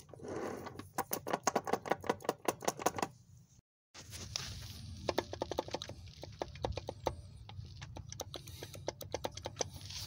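Quick run of clicks and rattles as a manual transmission's shafts are wiggled and turned by hand to check for play: gear and spline lash knocking. The audio breaks off briefly about three and a half seconds in, and the clicking resumes more softly.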